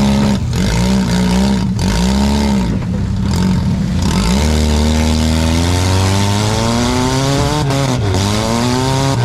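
A four-cylinder demolition derby car's engine revving up and down, with a long climb in revs through the middle before dropping and rising again. Several sharp bangs from cars colliding cut through it.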